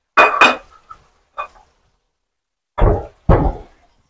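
Kitchen clatter: two quick, ringing clinks of utensils or crockery, then a lighter clink a second later. Near the end come two heavy knocks about half a second apart, a knife chopping on a cutting board.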